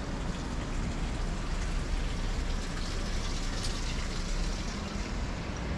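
Outdoor street ambience: a steady low rumble of distant traffic under a hiss that swells briefly about three to four seconds in.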